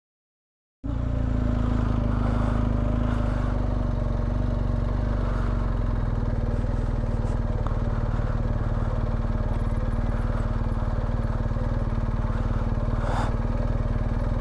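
BMW R1250GS boxer-twin motorcycle engine running at a steady pace, starting abruptly about a second in, with one brief knock near the end.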